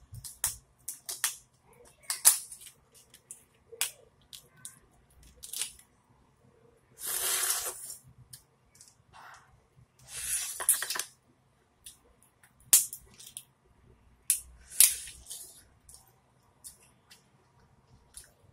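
Boiled lobster tail shell crackling and snapping as the meat is pulled out by hand, along with wet biting and chewing of the lobster meat. The clicks and snaps are irregular and sharp, the loudest about two seconds in and twice more near the end. Two longer, hissy stretches of noise come about seven and ten seconds in.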